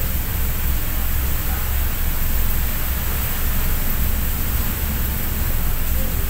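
Strong wind buffeting the microphone on an open ferry deck in a storm, a flickering low rumble over a steady rushing hiss of rain and rough sea.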